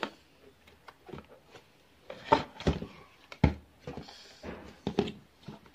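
Scattered knocks, taps and scrapes of a plastic toy tool against a small speaker cabinet, the loudest knocks about two and a half and three and a half seconds in.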